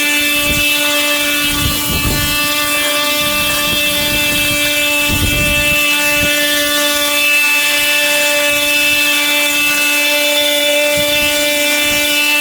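Small engine of a car-park cleaning machine running steadily at a constant pitch, with short low rumbles about two and five seconds in.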